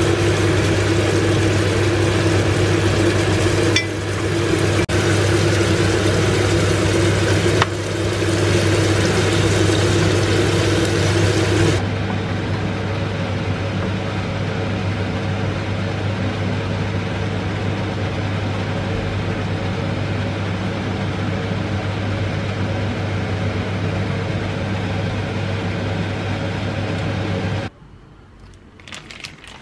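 Prawns sizzling in oil in a frying pan over a steady low hum, with a few light knocks. About twelve seconds in, the sizzle stops and only the hum goes on, until it cuts off shortly before the end.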